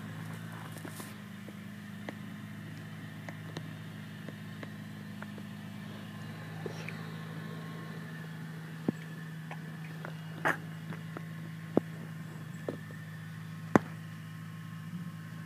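Gravely G20 walk-behind tractor engine running steadily while powering its snow blower, a low even hum whose sound changes slightly about six seconds in. Several short sharp knocks sound over it in the second half.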